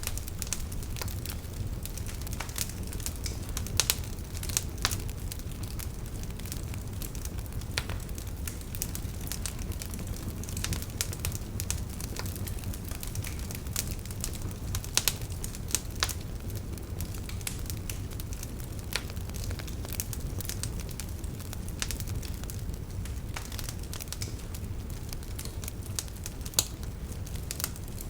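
Fire in a fireplace crackling, with sharp pops at irregular moments over a steady low rumble of the flames.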